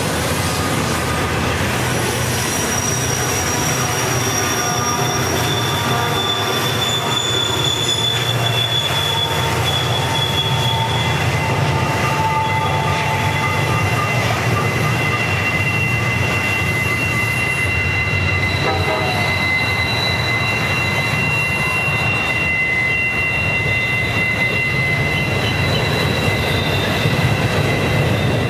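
Model trains running on a layout: a steady low rumble with long, steady high-pitched whines from the locomotives' motors and wheels on the track.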